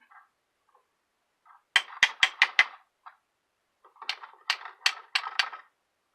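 Sharp metallic tapping on the desoldering pump's small hard parts: a quick run of about five taps, then after a pause another run of four, with a few lighter clicks between.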